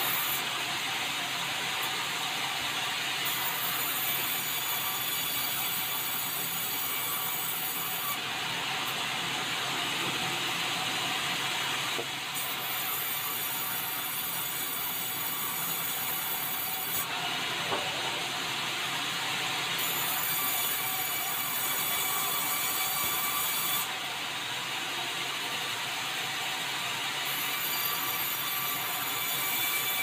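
Sawmill band saw running steadily and cutting meranti timber, a dense machine noise with a high hiss that comes and goes every four to five seconds.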